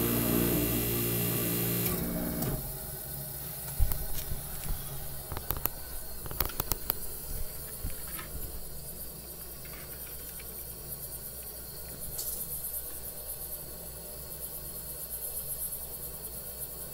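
Tecumseh AJM hermetic refrigeration compressor running with a steady electric hum that cuts out about two seconds in. Scattered sharp clicks and ticks follow, then a fainter steady hiss.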